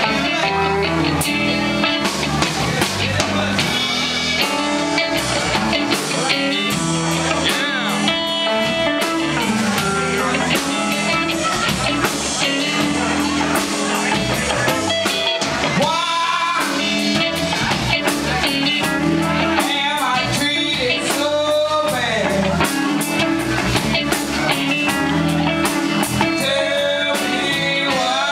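Live blues band playing, with electric guitars over drum kit and bass guitar. Two women's voices start singing near the end.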